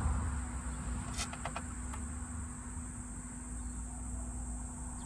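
A steady high-pitched drone of insects, with a few light plastic clicks a little over a second in from wiring connectors being handled.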